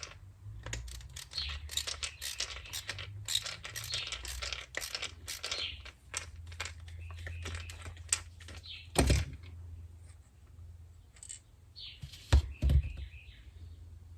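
Rapid clicking and rattling of small metal tools and parts being handled, denser in the first half, over a steady low hum. There are louder knocks about nine seconds in and a pair at about twelve seconds.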